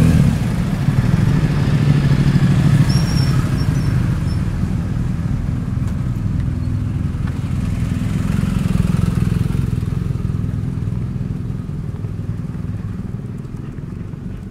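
A motor vehicle's engine running close by, a steady low hum that slowly fades away over the last few seconds.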